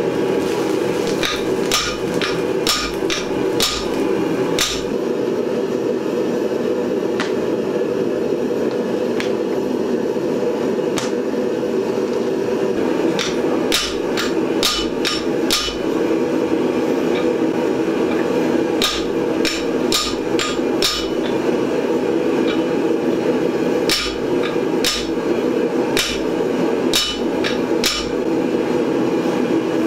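Hand hammer striking a hot chisel driven into a red-hot square steel bar on an anvil, cutting slits down the bar. The blows come in runs of a few at a time with short pauses between. A steady roar from the lit gas forge runs underneath.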